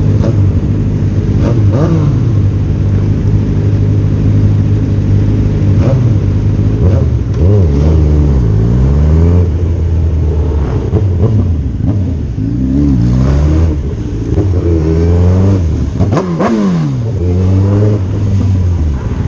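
Sport motorcycle engine running in slow traffic: a steady low hum at first, then revved up and down again and again after several seconds, its pitch rising and falling with each rev.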